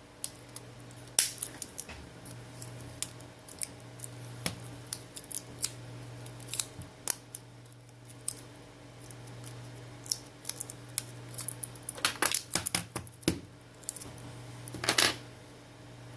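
Small plastic and metal phone parts and repair tools being handled: scattered sharp clicks and taps, with a quick run of clicks about twelve seconds in and a short scraping burst near the end.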